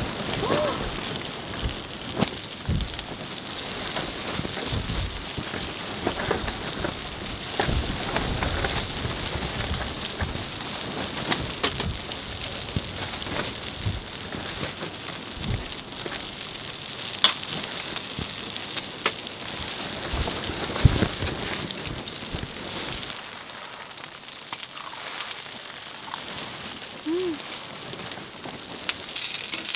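Rain pattering steadily on a tent, with scattered sharp drop taps. Soft low thumps run through the first part and die away about three-quarters of the way through.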